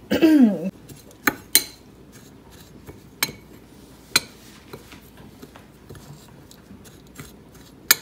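Metal spoon stirring a dry mix of oats, brown sugar and cinnamon in a small ceramic bowl: scattered sharp clinks of the spoon against the bowl, the loudest in the first few seconds, with many softer ticks between.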